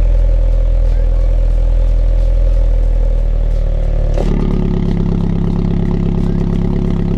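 MINI John Cooper Works' turbocharged four-cylinder engine heard through its JCW Pro sports exhaust, running at a steady engine speed, then stepping up to a higher, steady engine speed about four seconds in.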